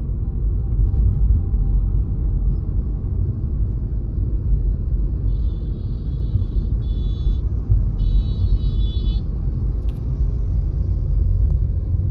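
Steady low road-and-engine rumble inside a moving Tata Altroz's cabin, with no rattle standing out from the gear lever, which has been fixed with a rubber piece. Faint high tones sound in two short stretches about halfway through, and a single click comes a little later.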